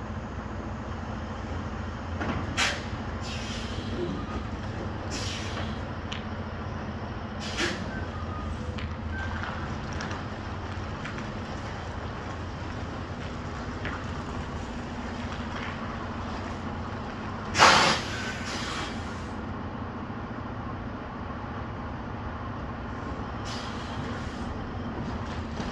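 Semi-truck engine running steadily while the rig backs slowly, broken by short sharp air-brake hisses: several in the first eight seconds, a louder one about two-thirds of the way through and a faint one near the end.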